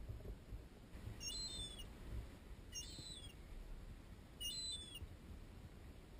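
Juvenile gull calling: three short, high, thin whistled calls, each falling slightly in pitch, about a second and a half apart, over a faint low rumble.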